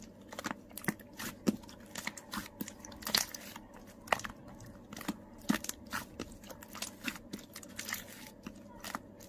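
Slime mixed with add-in parts being squeezed and poked by hand, giving irregular crunchy clicks and little pops, several a second.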